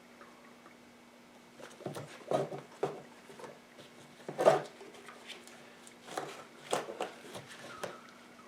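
Scattered knocks and clatters of parts and tools being handled on the quad, the loudest about four and a half seconds in, over a faint steady hum.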